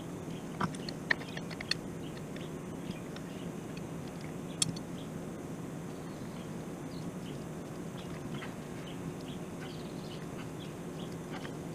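Hand tools and metal parts clinking on the excavator's fittings and lines: a few sharp clicks in the first two seconds and one near the middle, with lighter ticking later, over a steady low hum.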